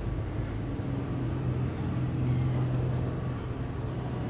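A steady low mechanical hum, a little stronger in the middle.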